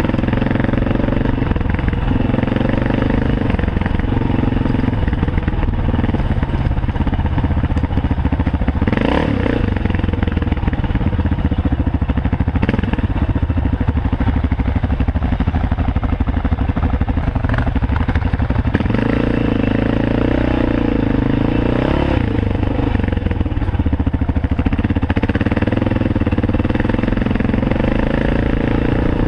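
Cagiva W16 enduro motorcycle engine running while riding a dirt trail, its revs rising and falling with the throttle. There is a sharp knock about nine seconds in.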